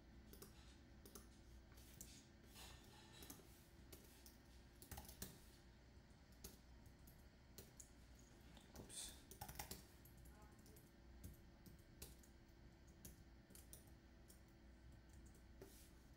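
Faint, irregular computer keyboard and mouse clicks over quiet room tone, a few keystrokes in quick clusters.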